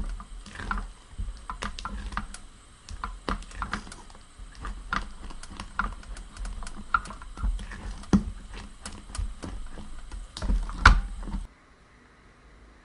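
A silicone spatula stirring thick custard cream in an enamel saucepan: irregular scrapes and knocks against the pan with soft, sticky sounds from the thickened cream. The sound cuts off abruptly near the end.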